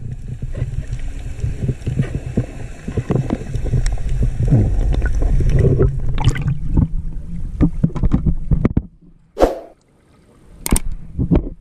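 Underwater noise picked up by a diving camera: a steady low rumble scattered with many small clicks and knocks. It falls away about nine seconds in, then a few sharp knocks follow.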